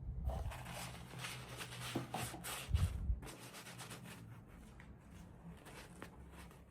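Packaging being rustled and handled while a toy is unboxed, busiest and loudest for the first three seconds, then lighter rustles and small clicks.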